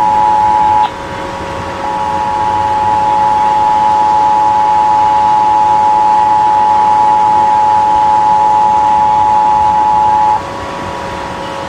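Emergency Alert System two-tone attention signal, the 853 Hz and 960 Hz tones sounding together as a loud steady chord, as broadcast at the start of a required monthly test. It breaks off about a second in, comes back a second later and stops about a second before the end, leaving a fainter steady tone underneath.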